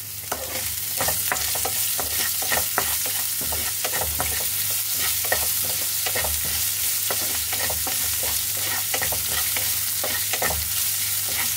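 Crushed garlic, chopped green chillies and whole spices sizzling in hot oil in a non-stick frying pan while being lightly sautéed, with a spatula scraping and knocking against the pan in frequent, irregular strokes.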